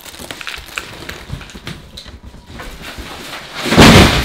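Cardboard shipping boxes being knocked over and tumbling, with scattered light knocks and rustles, then a loud crash about four seconds in as they come down.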